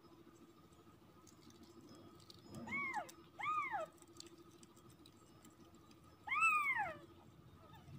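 Newborn kitten mewing: three short, high-pitched cries, each rising and then falling in pitch. The first two come close together about three seconds in, and a louder one follows near the end.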